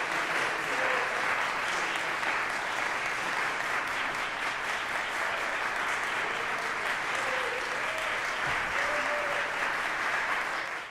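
Audience applauding steadily, with a few faint calls from the crowd, fading out at the very end.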